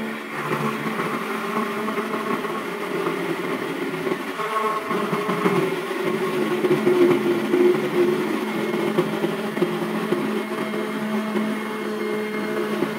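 Small 775 DC motor running a milling bit in a homemade table milling machine, grinding into a hand-fed sheet. A steady motor hum sits under a rough cutting noise that swells and eases as the sheet is pushed into the bit.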